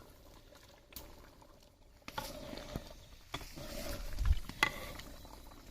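Cookware handling sounds while ghee is added to a large pot: scattered clicks and scrapes, with a dull thump about four seconds in.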